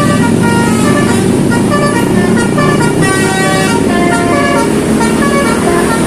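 A tour bus's multi-tone 'telolet' horn playing a quick tune of short notes that step up and down in pitch, over the steady rumble of engines on the road.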